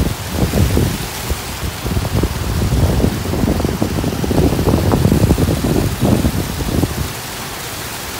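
Dense, irregular crackling rumble of handling noise, hand and fleece sleeve rubbing right against the phone's microphone, settling into a steadier, quieter hiss near the end.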